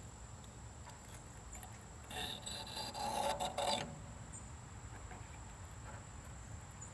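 Pocket knife blade drawn across a water-wetted Smith's sharpening stone: a rasping, scraping stroke about two seconds in that lasts nearly two seconds, with fainter rubbing around it.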